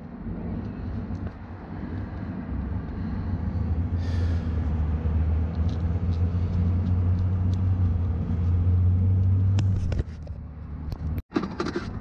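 A steady low mechanical hum with rumble that swells a couple of seconds in and drops off about ten seconds in. Light clicks of wires and connectors being handled come near the end.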